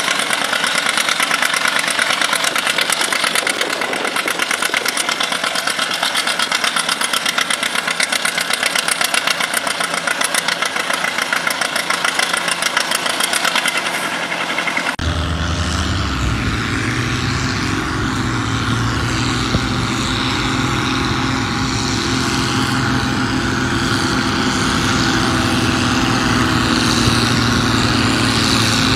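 Old green John Deere tractor engine running with an even pulsing beat while hooked to the pulling sled. About halfway through, the sound changes abruptly to a farm-stock diesel tractor working hard down the pull track, its engine holding a steady low note under the sled's load.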